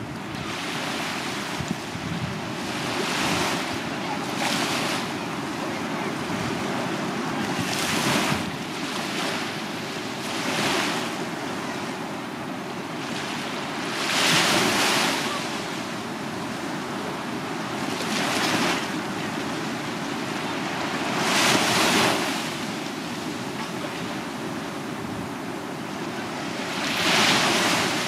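Small waves breaking and washing up a sandy beach: a steady rush of surf with a louder hiss every few seconds as each wave spills onto the sand.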